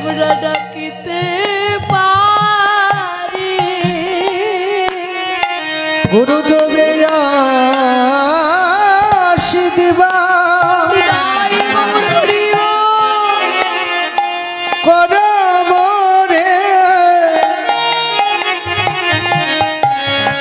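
Bengali kirtan music: a sliding melodic line with wide vibrato over steady hand-drum beats.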